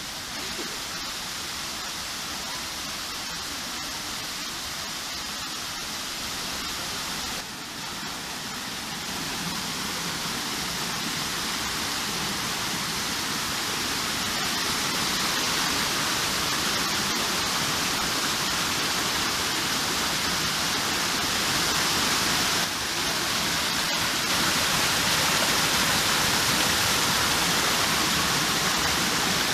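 Garden waterfall pouring into its pool: a steady rushing of falling water that grows gradually louder.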